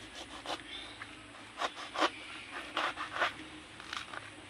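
Knife cutting through the thick spongy rind and pith of a pomelo: about six short, crisp cutting strokes, the loudest about two seconds in.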